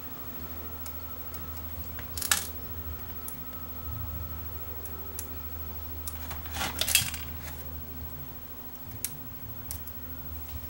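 Small clicks and taps of a contact-cleaner applicator and fingers against the metal chassis and leaf-switch contacts of a cassette deck mechanism while the contacts are cleaned, over a steady low hum. The loudest are a couple of sharp clicks about two seconds in and a cluster around seven seconds.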